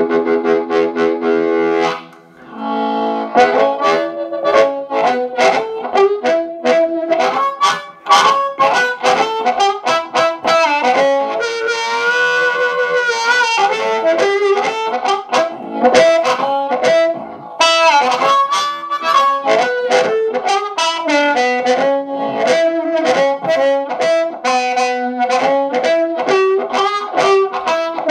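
Amplified blues harmonica played through a JT30 bullet microphone with a crystal element into a Harp Train 10 amplifier. It opens on a held chord, breaks off briefly about two seconds in, then runs into blues phrases with rapid rhythmic chugging.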